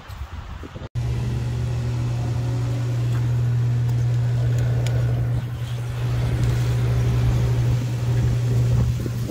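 Old Bennett gas pump dispensing fuel through the nozzle into a car's tank: a steady low motor hum that starts abruptly about a second in.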